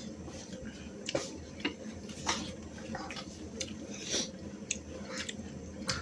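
Eating sounds: scattered, irregular small clicks and wet smacks of people chewing and eating by hand from steel plates.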